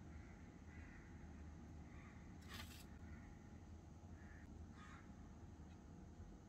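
Near silence over a low steady hum, with faint short bird calls repeating about once a second in the background. Two brief sharp clicks come partway through.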